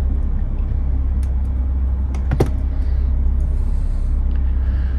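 Steady low hum with a few light clicks, small metal parts of a chain and ring being handled.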